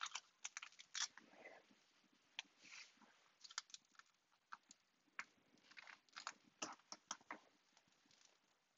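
Near silence with faint, scattered small clicks and rustles of fabric and pins being handled on a sewing pocket piece.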